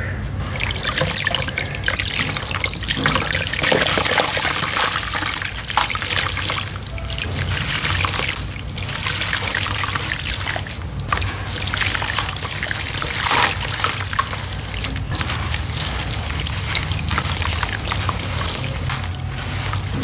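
Dried sawdust-and-sand clumps crumbling into water: a continuous crackling, trickling fizz of many tiny clicks and pops, easing off briefly a few times, over a low steady hum.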